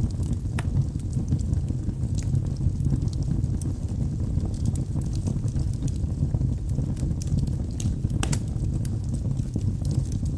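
Wood fire burning in a fireplace: a steady low rumble of the flames with scattered sharp crackles and pops from the burning logs, one louder pop about eight seconds in.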